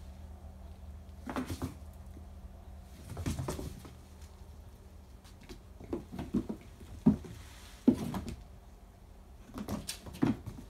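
Kittens' paws thumping and scuffling on a hard floor and against a wall as they pounce, in short scattered clusters every second or two, over a faint steady low hum.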